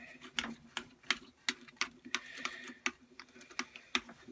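Quick-release, keyless Jacobs-style drill chuck in the lathe headstock being twisted tight by hand on a center drill: a string of sharp, irregular clicks, a few a second.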